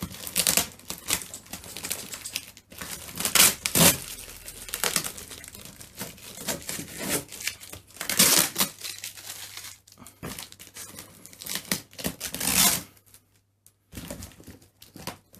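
A parcel's packaging being opened: irregular crinkling, rustling and tearing of tape and wrapping, loudest in a few sharp tears about three and a half, eight and twelve and a half seconds in, with a brief pause near the end.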